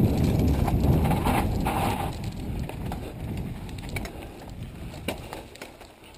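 Mountain bike rolling over a rough dirt trail with wind on the microphone: a low, noisy rumble that fades over the second half, with a few light clicks and rattles.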